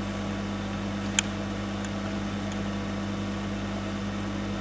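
Steady low electrical hum from workbench equipment, with a single sharp click about a second in and a couple of faint ticks after it.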